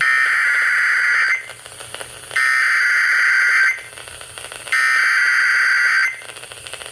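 Emergency Alert System SAME data tones: three warbling digital bursts of about a second and a quarter each, roughly a second apart. This is the header that opens the next alert, a severe thunderstorm warning.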